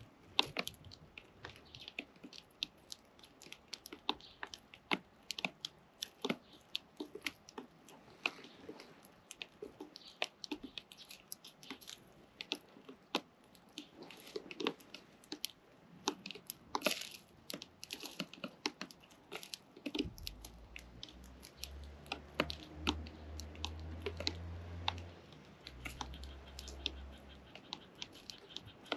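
Many irregular small clicks and taps, several a second, of sparrow chicks pecking and cracking feed. A low hum comes in about twenty seconds in and lasts several seconds.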